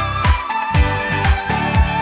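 Background music with a steady beat: a deep kick drum about twice a second under sustained melody notes.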